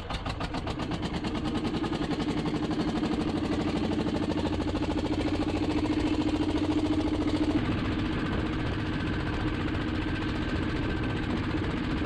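Small fishing boat's engine running under way, picking up over the first two to three seconds and then running steadily with a fast, regular beat.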